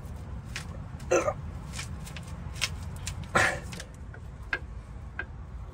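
A man grunting with effort in two short bursts, about a second in and more strongly a little after three seconds, as he heaves on a breaker bar to break a seized, flood-damaged engine free. Faint clicks of the bar and socket come between, over a steady low hum.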